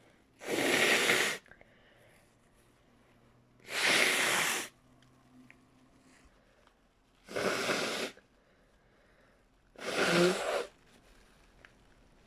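A person blowing their nose hard four times, a few seconds apart, each blast a rushing noise lasting about a second. The last blast carries a low tone.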